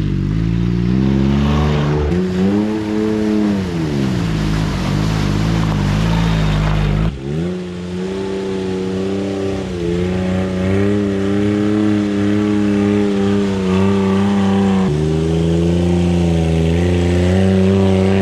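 Small engine of a lifted Japanese mini truck revving, its pitch rising and falling repeatedly as it drives off-road. About seven seconds in the sound cuts to a steadier engine note under load in mud, surging a little and climbing near the end.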